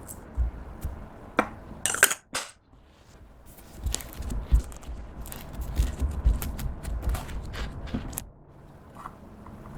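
Clear slime being mixed by hand with a utensil, giving sharp clicks and clinks against a container. There is a loud cluster about two seconds in, then a dense run of small pops and clicks from about four to eight seconds in.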